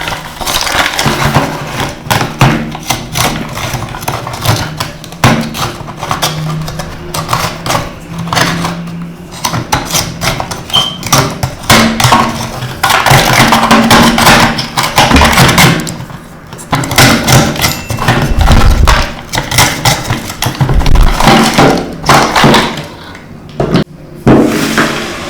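Cleaning and handling noises on a toy car: dense scratching and scrubbing strokes mixed with many sharp clicks and knocks, going on without a break.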